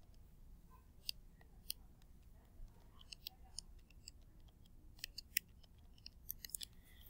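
Faint, irregular clicking of keys being pressed, about fifteen light taps in uneven runs, over a low background hum.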